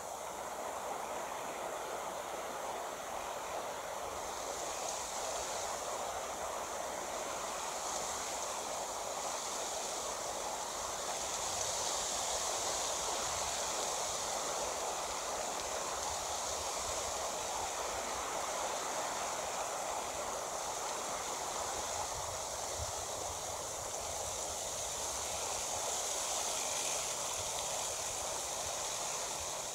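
Steady rushing outdoor noise with no distinct events. A high hiss on top of it grows louder a few seconds in and again toward the middle.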